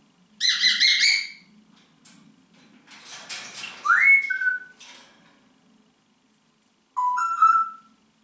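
Congo African grey parrot whistling and calling in three separate bursts: a call about half a second in, a noisy squawk that turns into a rising whistle around four seconds, and a short two-note whistle near the end.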